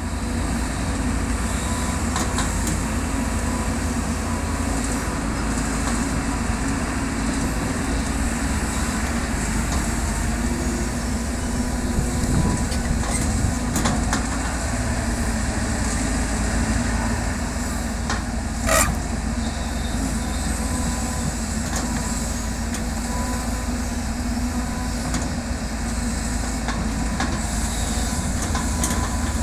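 Caterpillar excavator's diesel engine running steadily under load with a deep rumble, with one short sharp metallic knock about two-thirds of the way through.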